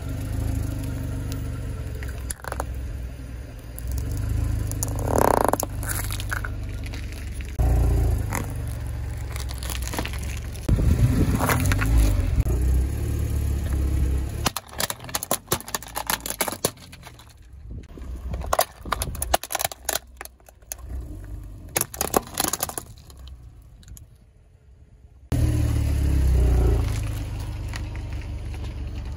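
Car tyre rolling slowly over objects on asphalt and crushing them one after another: plastic toys and containers cracking, waffle cones crunching, over the low sound of the car's engine. In the middle stretch the engine drops away and sharp cracks and snaps come through alone, and the engine sound returns near the end.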